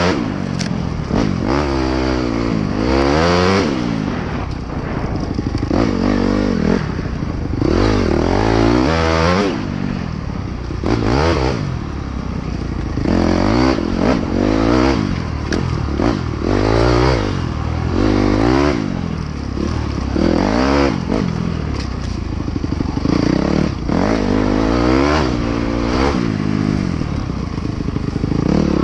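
Dirt bike engine being ridden off-road, revving up and down over and over, each burst of throttle rising and then falling in pitch, with short knocks in between.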